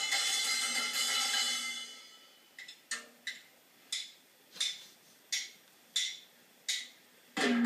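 A toddler banging on a child-size drum kit with sticks, heard from a television. A loud clash with the cymbal ringing fades out over the first two seconds. Single strikes follow about every two-thirds of a second, and another loud clash comes near the end.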